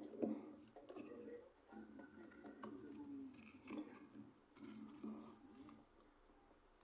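Faint scattered clicks, clinks and small knocks of tools and parts being handled on a workbench.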